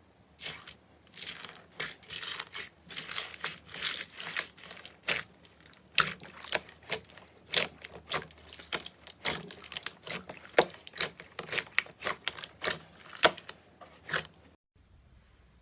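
Slime being handled, making a dense, irregular run of crackling clicks and pops, which stops abruptly about a second before the end.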